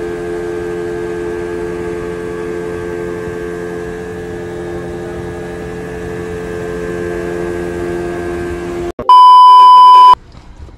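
A boat motor running steadily at speed, cutting off abruptly about nine seconds in. Then a very loud test-card beep, one steady tone lasting about a second, the loudest sound here.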